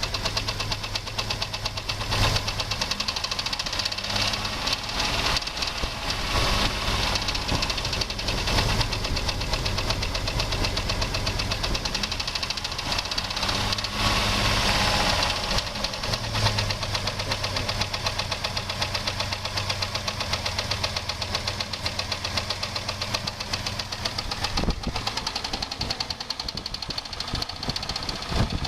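2001 Jeep Grand Cherokee's 4.0 straight-six engine running with a rapid, steady knock. The knock is loudest at the exhaust manifold where it joins the engine. The owner suspects timing chain tensioners, a cracked or loose flex plate, a vacuum hose or rattling heat shields. Wind is hitting the microphone.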